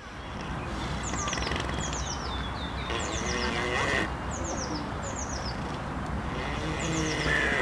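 A sleeping pig snoring, with two longer drawn-out snores, about three seconds in and near the end. A bird sings quick groups of short, high, falling notes in the background, about once a second.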